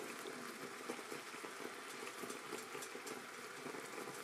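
Dark sauce bubbling vigorously around salmon fillets in a cast iron pan: a steady fizzing simmer dotted with many small pops.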